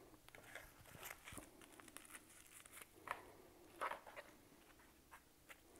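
Near silence with a few faint, short rustles and soft clicks of coleslaw being put onto soft tortilla tacos by hand, loudest about three and four seconds in.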